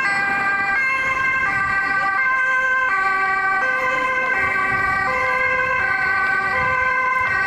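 Dutch ambulance's two-tone siren, alternating steadily between a high and a low tone about every 0.7 seconds.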